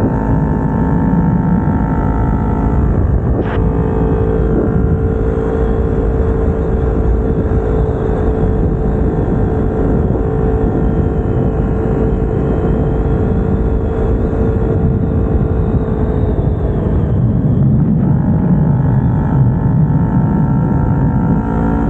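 Kawasaki Ninja 250R's parallel-twin engine with aftermarket headers and exhaust, under way on the road. After a sharp click about three and a half seconds in, the engine note holds steady for about twelve seconds, then changes pitch near the end, over a low rushing noise.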